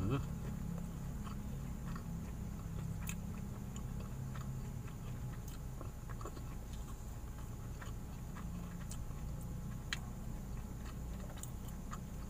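A man chewing food, with scattered small clicks of eating and handling food by hand. A steady low hum runs underneath.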